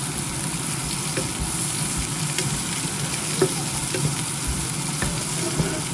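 Sliced red onion rings sizzling steadily as they fry in butter in a nonstick frying pan, with a wooden spatula stirring them and tapping against the pan a few times.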